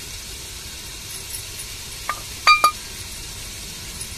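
Small steel bowl tapped against the rim of an aluminium cooking pot to empty spice powder into it: three sharp ringing metallic clinks a little past halfway, the last two close together.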